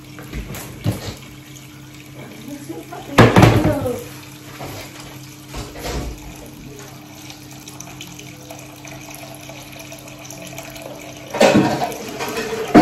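Kitchen tap running steadily into a sink. A metal cooking pot clatters loudly about three seconds in and again near the end, with a few lighter knocks in between.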